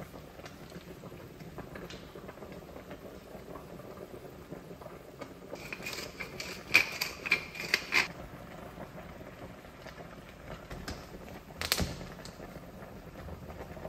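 Wooden pepper mill grinding black pepper in several short bursts of rattling clicks, between about six and eight seconds in. A single sharp knock follows a few seconds later.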